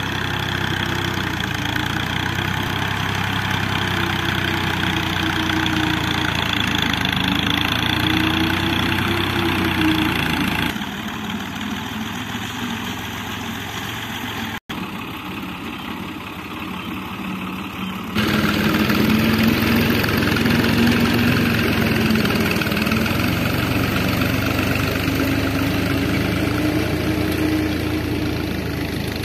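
Ghazi tractor's diesel engine running under load while pulling a mounted disc plough, its pitch rising and falling slowly as the load changes. It is quieter for several seconds in the middle.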